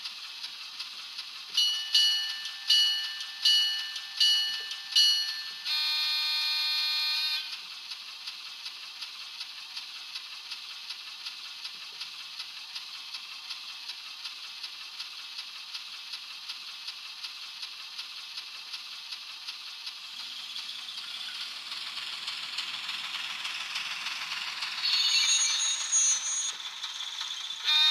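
Model train's DCC sound decoder in a Burlington Pioneer Zephyr model, playing through its small speaker: a steady, hissy diesel engine sound with faint regular ticks, about five bell rings followed by a held horn blast of about a second and a half. The engine sound rises over the last several seconds, with a few louder bursts near the end.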